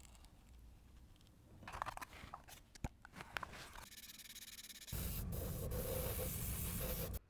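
Small craft work on a miniature model: light clicks and scraping of tools and small parts, then a loud, steady hiss for about two seconds that cuts off sharply near the end.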